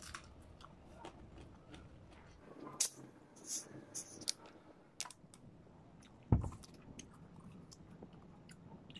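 Small clicks of eating, then the cap of a plastic Coca-Cola bottle being twisted open, with short high hissy noises about three and a half seconds in. A single sharp thump about six seconds in is the loudest sound.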